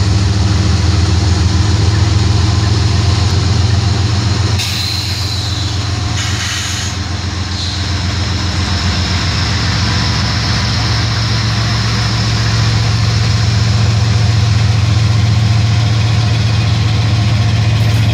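The diesel engines of two GE freight locomotives, an ES40DC leading and a Dash 9-44CW trailing, running with a deep, steady drone as the locomotives roll slowly past close by. A brief high hiss cuts in about four and a half seconds in and again a couple of seconds later.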